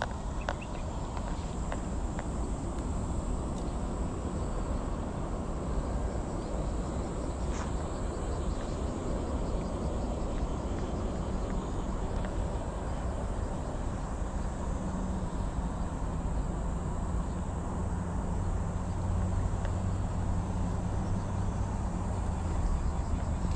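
Outdoor riverside ambience: a steady rumble of wind on the microphone with a thin, steady, high insect buzz over it. A low hum joins about fifteen seconds in, with one sharp click about halfway through the first half.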